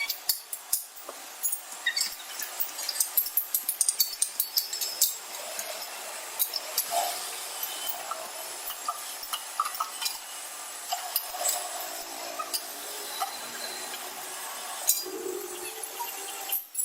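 Metalwork on the steel hoe: a quick run of light metallic taps and clinks, then a steadier stretch of rubbing and scraping with only occasional clinks.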